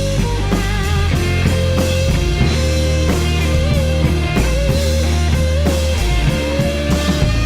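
Rock music: a sustained, bending electric-guitar lead line over bass and a steady drum beat.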